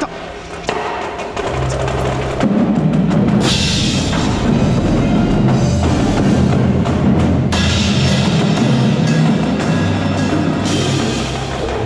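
Indoor marching percussion ensemble playing, with drums and low pitched tones underneath. A pair of hand crash cymbals right at the microphone crashes three times a few seconds apart, each crash ringing on for a second or so.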